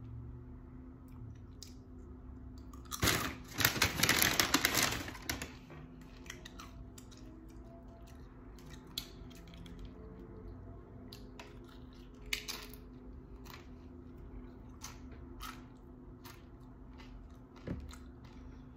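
Close-up eating of tortilla chips with guacamole: a loud stretch of dense crackling about three seconds in, then single sharp crunches every few seconds as the chips are bitten and chewed.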